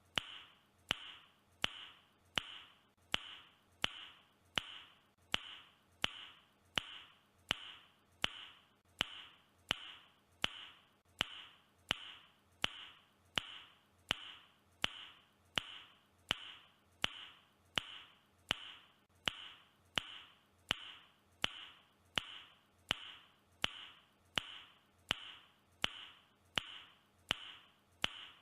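A man's mouth click, a sharp tongue click, repeated at an even pace of about three clicks every two seconds, each with a brief bright ring after it.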